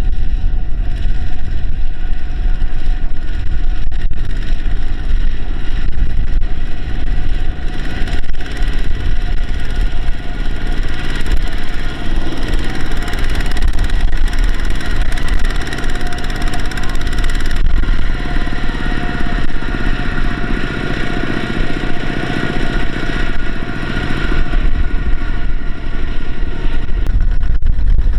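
Heavy diesel engine of earthmoving machinery running steadily with a deep rumble and a whine above it that grows louder in the middle stretch, as if working harder.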